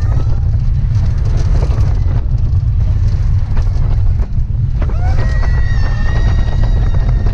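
Roller coaster train running fast along its steel track: a loud, steady rumble of the wheels mixed with wind buffeting the microphone, with scattered clicks and rattles. About five seconds in, a steady high-pitched tone with overtones joins in and holds.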